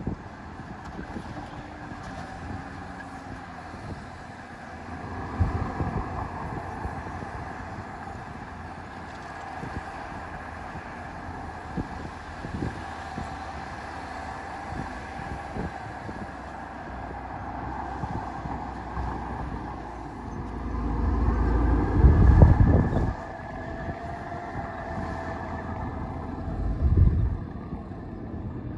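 Heavy diesel earthmoving machinery running steadily, with a louder low rumble about three quarters of the way through and a shorter one near the end.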